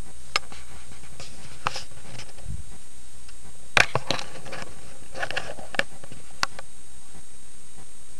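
Clicks, knocks and rustling of a camera being handled and repositioned, with a sharp knock about four seconds in, over a steady hiss. No playing yet.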